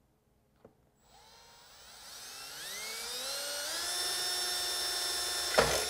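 Cordless drill with a number 31 bit boring a pilot hole through a shower door's metal wall channel at the curb. The motor's whine rises in pitch for about three seconds as it speeds up, then holds steady, with a short louder burst just before it stops.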